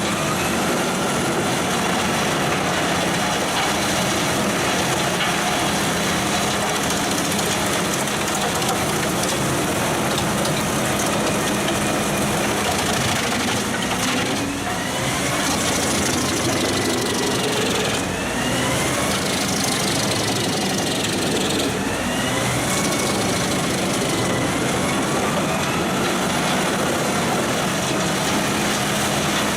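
Large industrial wood chipper running hard, its engine and cutting drum chewing through wood with a dense, steady noise. A whine rises and falls in pitch several times as the load changes, with brief dips about halfway through.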